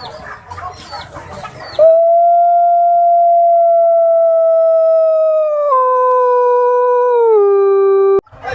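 Chickens clucking, then a single long canine howl that holds one pitch for about four seconds, drops in two steps and cuts off suddenly.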